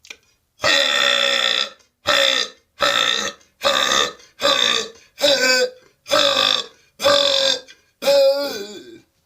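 A man belching on purpose, nine loud burps in a quick run, one after another. The first is about a second long, the rest shorter, and the last wavers in pitch.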